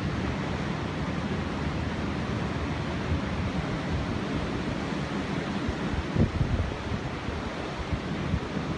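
Strong wind and heavy surf on the coast as a typhoon approaches: a steady rushing noise with low, uneven buffeting of wind on the microphone. A louder low thump comes about six seconds in.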